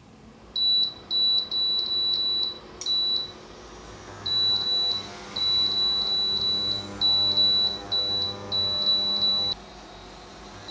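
Induction cooker's beeper sounding a quick series of short, high beeps in runs with brief gaps. A low hum sits under the beeps from about four seconds in until they stop.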